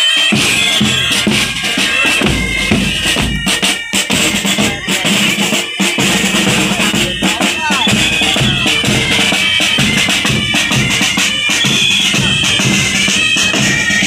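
Marching pipe band playing: bagpipes carrying a high melody over snare and bass drums, with the drums most prominent.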